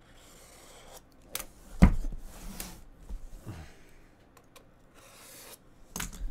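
Utility knife blade scraping and slicing along the seal of an aluminium card briefcase, in rasping strokes, with sharp knocks against the metal case, the loudest about two seconds in and another near the end.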